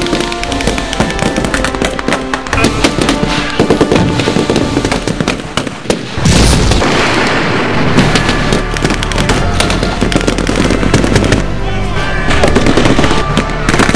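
Rapid, irregular blank gunfire from rifles and machine guns in a WWII battle reenactment, with a louder blast about six seconds in. Music plays underneath.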